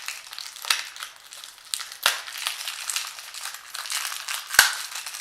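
Sandpaper rustling and crinkling as it is handled and fitted onto the sanding pad of an oscillating multi-tool, with three sharp knocks spread through it, the last the loudest. The tool is not running.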